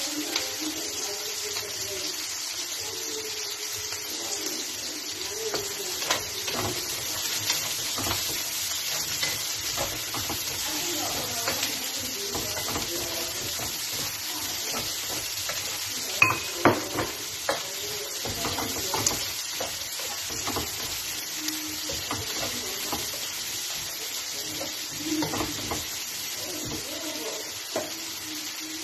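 Vegetables sizzling as they are stir-fried in a hot frying pan, with a spatula scraping and clicking against the pan. A few sharp knocks a little past halfway are the loudest sounds.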